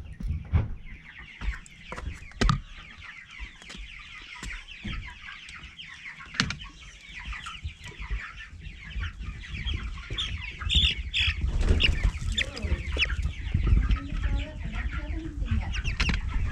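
A flock of four-week-old Meat King broiler chicks peeping continuously, a dense chorus of short, falling cheeps. A few sharp knocks come in the first half, and low rumbling handling noise builds in the second half.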